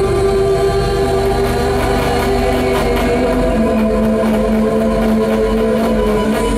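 Loud electronic drone from synthesizers and electronics played live: several held tones layered over a low rumble, with a new lower tone coming in about halfway through.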